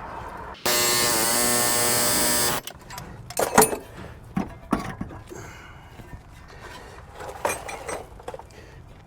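A power tool runs in one steady whining burst of about two seconds, starting and stopping abruptly, followed by several short metallic clinks and knocks of tools and parts being handled.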